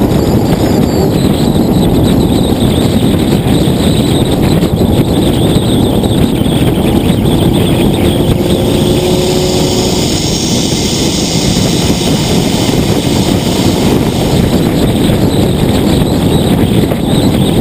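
Nissan GT-R driving at speed, heard from a low exterior-mounted camera: a loud, steady rush of wind and road noise with the engine underneath.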